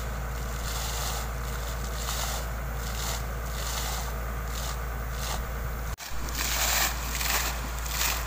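Water gushing and splashing out of the open top of a borehole pipe fed by a solar-powered pump. It comes in surges a little more than once a second over a steady low rumble, and grows louder about six seconds in.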